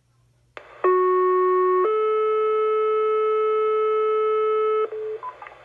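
Two-tone sequential fire-pager alert tones played through a radio scanner's speaker. A burst of squelch hiss opens it, then a lower tone sounds for about a second and a higher tone is held for about three seconds. This is the paging signal that sets off the fire department's pagers for a test, followed by a brief blip and hiss as the channel stays open.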